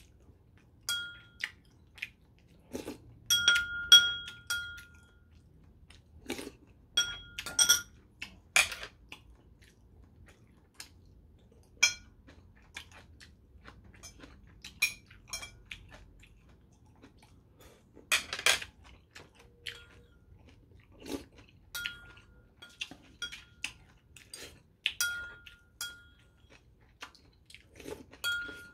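Metal spoon and chopsticks clicking and clinking against ceramic bowls and plates, a few strikes ringing on briefly as a clear tone, with chewing between them.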